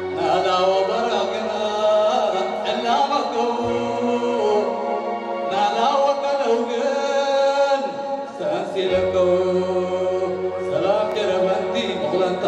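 A man singing in a chant-like style through a microphone and PA, accompanied by a Yamaha electronic keyboard that holds long sustained bass notes, changing a few times.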